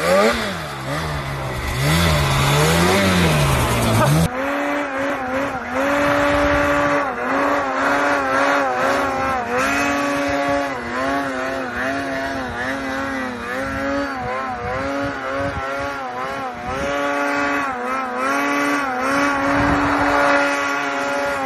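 Snowmobile engine revving, its pitch swinging up and down for about four seconds. Then a second snowmobile engine is held at high revs through a long wheelie, its pitch steady with brief dips as the throttle eases off and back on.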